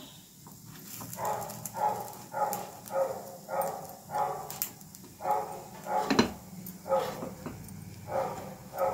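An animal calling over and over in short pitched calls, about two a second, starting about a second in, over a low steady hum. A single sharp knock about six seconds in.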